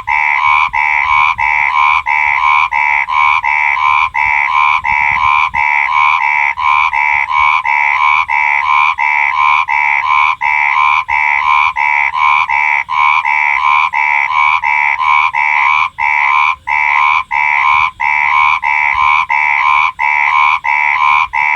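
Frog croaking in a fast, even series, a few calls a second, each call with a strong pitch of about one and two kilohertz.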